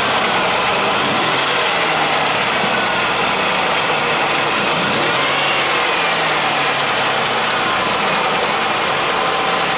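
Ford Taurus engine idling steadily, heard at the open engine bay, with a faint whine that rises and falls. The owner is chasing a rattle that he hears only faintly here and puts down to the exhaust, behind the engine, rather than the engine itself.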